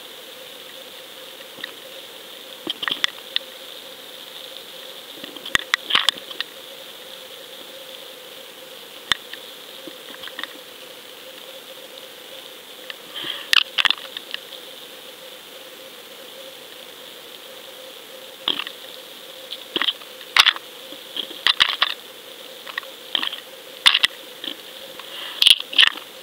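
Underwater camera sealed in its waterproof housing on a fishing line, picking up a steady electronic hum with scattered clusters of sharp clicks and knocks as the rig is jostled, the clicks coming more often near the end.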